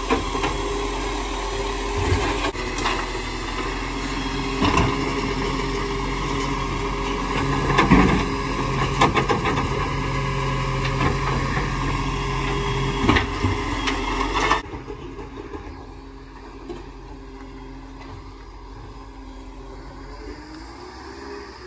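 Iveco side-loading garbage truck running at the kerb while its hydraulic arm lifts and tips wheelie bins, with a steady hum and several sharp clanks as the bins are shaken out. About two thirds of the way through it drops suddenly to the quieter sound of the truck running further off.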